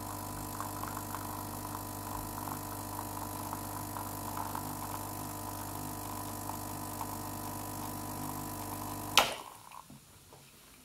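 Gaggia Classic espresso machine's vibratory pump humming steadily while it pushes water through the puck during the shot. About nine seconds in, the pump is switched off and the hum ends with one sharp, loud burst of noise, ending the extraction.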